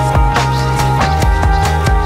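Background music with a steady beat and sustained notes, no speech.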